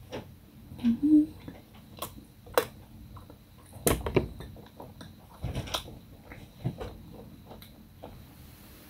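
Close-up chewing of a chocolate-coated snack bar, with scattered clicks and knocks from handling. A brief low hum about a second in.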